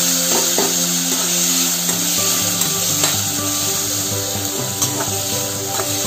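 Chopped tomatoes, green chilli and garlic sizzling in ghee in a metal kadai as a spatula stirs them, with scattered clicks and scrapes of the spatula against the pan. This is the sautéing stage of a rasam tempering.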